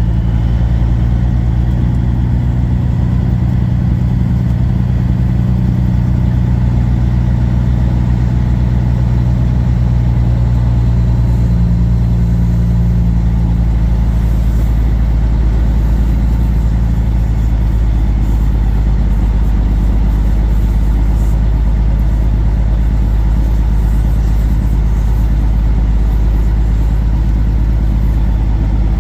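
Kenworth W900 semi truck's diesel engine running steadily, heard from inside the cab as a low, even drone. The higher part of the hum fades about halfway through.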